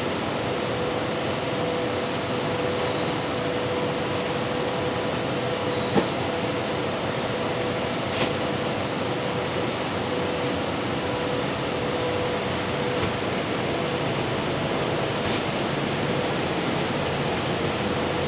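Steady drone of running machinery or a fan, with a faint steady hum in it and two brief knocks partway through.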